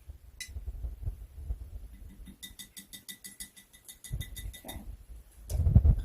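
A spoon stirring a glass jar of oil, water and paint, clinking quickly and evenly against the glass for a couple of seconds midway, with a low thump near the end.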